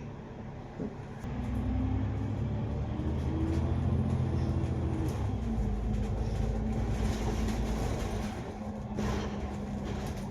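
Double-decker bus's diesel engine and drivetrain heard from inside the cabin, running louder from about a second in as it pulls under load, with a steady whine, then easing off near the end.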